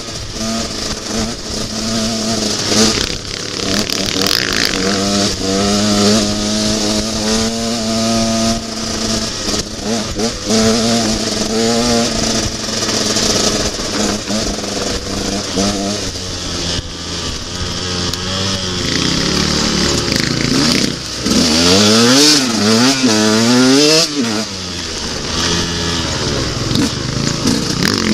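Enduro motorcycle engine running under load off-road, its pitch rising and falling with the throttle and gear changes. About three quarters of the way through, it gives a run of quick revs up and down.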